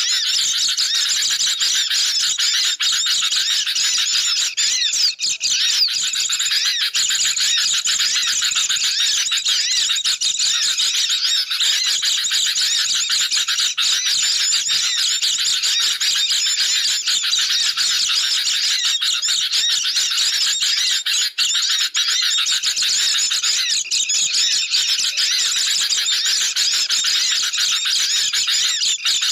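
A dense, unbroken chorus of agitated chattering and squeaky calls from sooty-headed bulbuls (kutilang) mixed with white-eyes (pleci), many birds calling over one another at a steady level. It is a noisy lure recording used to draw wild birds in.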